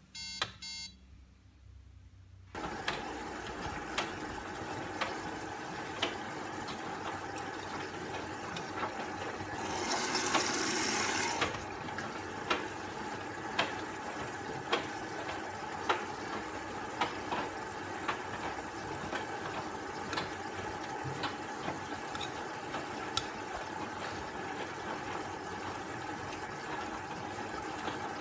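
Gorenje washing machine: a short control-panel beep, then the machine running with a steady hum and a tick about once a second. About ten seconds in there is a loud hiss lasting a second and a half.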